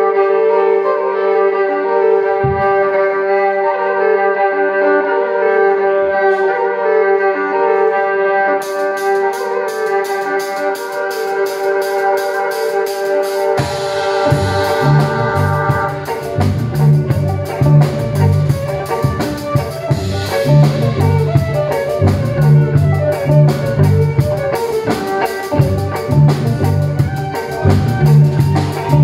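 Live amplified violin played through effects pedals, holding sustained layered tones over a repeating figure. About eight seconds in a fast, regular high ticking comes in, and about five seconds later a drum kit joins with a heavy low beat under the violin.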